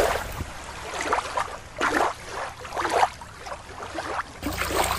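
Moving water sloshing and swishing in repeated swells.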